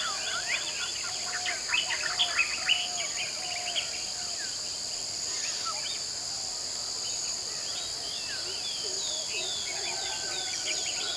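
Tropical forest dawn chorus: many birds calling and chirping over a steady high-pitched drone of insects. The bird calls are thickest in the first few seconds, thin out in the middle and pick up again near the end, with a lower repeated call running underneath.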